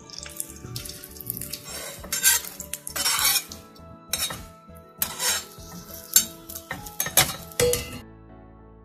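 Flat metal spatula scraping and tapping against a tawa as a ghee-coated puran poli is pressed and turned, repeated scrapes and knocks every second or so, with a light sizzle of the ghee.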